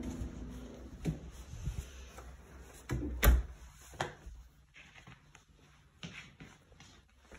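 A few knocks and thumps with light rustling as a person moves through an entryway with a shopping bag and steps into slippers on a tiled floor; the loudest knock comes about three seconds in.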